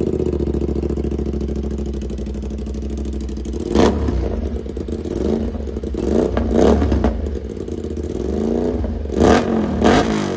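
Aprilia RS 457's parallel-twin engine idling through an aftermarket full-system exhaust, with a slip-on muffler held by hand against the header pipe. The throttle is blipped a few times, each a short rise and fall in revs.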